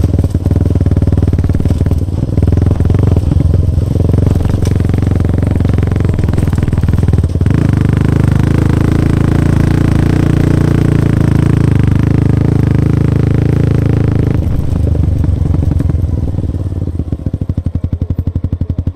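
Yamaha XSR 155's single-cylinder engine through a full-system aftermarket exhaust, running at trail speed under light, changing throttle. Near the end the throttle closes and the revs drop to a slower, even beat in which the separate firing pulses can be heard.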